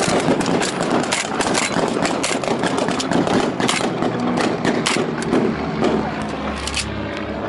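Gunfire from the ship's guns in a staged battle: many sharp cracks in quick, irregular succession, thinning out near the end. Underneath is a steady engine drone, with a low hum coming up in the last couple of seconds.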